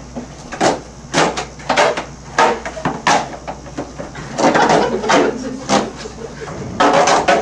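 Irregular run of sharp knocks and thumps from an object, apparently a cardboard pizza box, being handled and set down on a box counter, about a dozen over several seconds.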